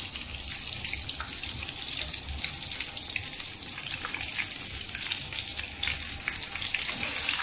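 Flour-coated fish fillet frying in hot oil in a pan: a steady sizzling hiss with many small crackles and pops.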